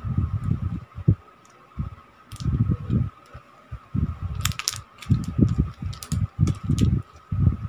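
Plastic snack wrapper crackling in the hands about four and a half seconds in, over irregular low thumps and rumbles and a steady high hum.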